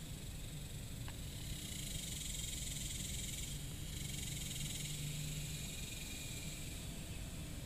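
Steady high insect drone that swells for a few seconds in the middle, over a low rumble.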